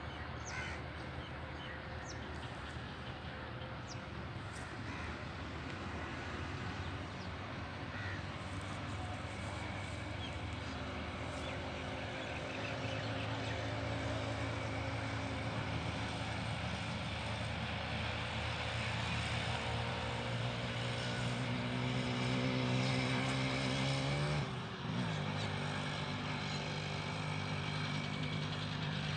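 An engine running with a steady low drone that slowly grows louder. About 25 seconds in it dips briefly and slides in pitch, then runs steadily again.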